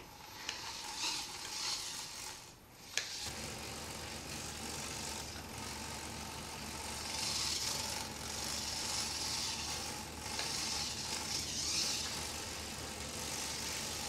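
ThinkGizmos two-wheeled self-balancing toy robot driving on a wooden floor, its small geared drive motors whirring and rattling as it moves under joystick control. The noise swells in a few surges, with a single click about three seconds in.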